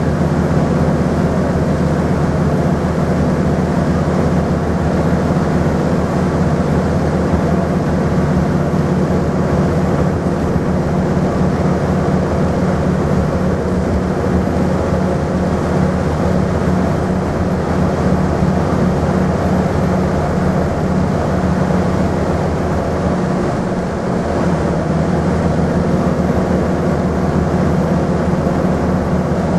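Scania N230UD double-decker bus's five-cylinder diesel engine running hard at a steady speed, with road and body noise, heard inside the passenger saloon. The engine note holds steady, with a brief dip in level about three-quarters of the way through.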